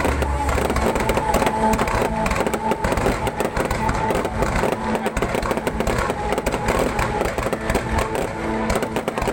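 Fireworks display, a dense run of rapid crackles and pops over a steady din.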